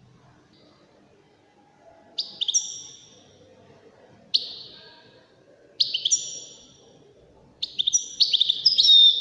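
European goldfinch singing in four bursts of short, bright twittering phrases. Each phrase starts sharply and trails off. The first comes about two seconds in, and the longest, loudest run comes near the end.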